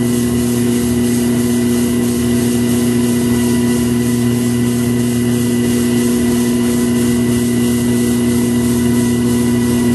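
Small lathe driven by a 110-volt DC motor on a router speed control running at a steady speed, with an even, constant hum, while a brass clock part is shined up on it.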